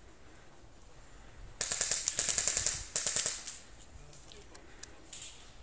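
Airsoft rifle firing two full-auto bursts, a rapid rattle of about a dozen shots a second: a longer burst of over a second, then a brief second burst after a short pause.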